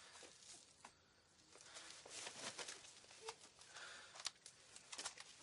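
Faint rustling and crackling of forest litter and cloth as someone bends and handles things on the ground, with a few sharp clicks scattered through it.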